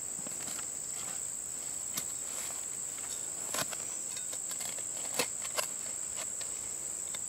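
A spade cutting into turf and prying up the sod: a few soft crunches and scrapes in the soil, the clearest about three and a half and five seconds in. A steady high-pitched insect drone runs underneath.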